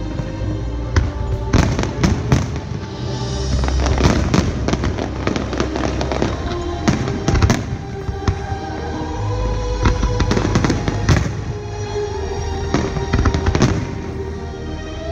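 Aerial fireworks shells bursting in quick succession, a dense run of sharp bangs and crackles, over music with long held notes.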